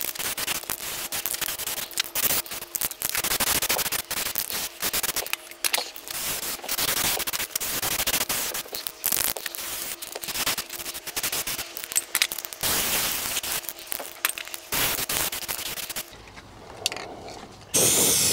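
Aerosol spray can of red oxide primer hissing in many short bursts as it coats a cast-iron engine crankcase. The spraying stops about 16 seconds in, then one louder burst comes near the end.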